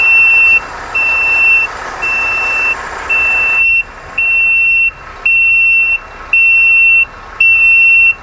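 Breathing-apparatus distress signal unit (DSU) sounding its alarm under test: a loud, high-pitched beep repeating about once a second, each beep a little over half a second long.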